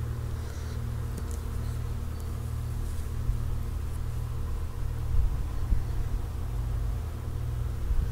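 A steady low hum with a faint rumble underneath, growing slightly louder about five seconds in.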